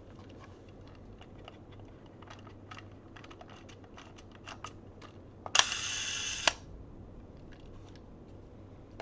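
Zorki 4 rangefinder camera handled with small mechanical clicks. About halfway through, its cloth focal-plane shutter fires on a slow speed: a click opens it, the slow-speed escapement whirs for about a second, and a sharp click closes it.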